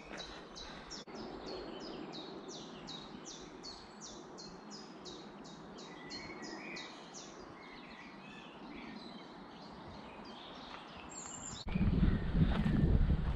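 A songbird sings a long run of repeated high notes, each falling in pitch, about three a second, for about seven seconds over a faint outdoor hiss. Near the end, loud footsteps on the path start up suddenly.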